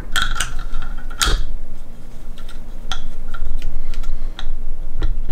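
Clicks, knocks and a short creak of metal parts being handled as a knife is worked loose from the over-tightened blade clamp of a KME guided sharpener, with a strong sharp click a little over a second in.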